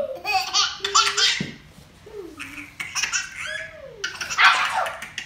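A baby laughing hard in three rounds of breathy belly laughter, the loudest about four and a half seconds in.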